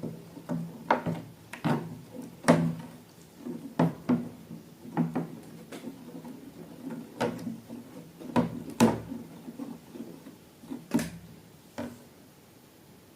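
Irregular hard taps and knocks, one or two a second, over a faint low hum, thinning out near the end.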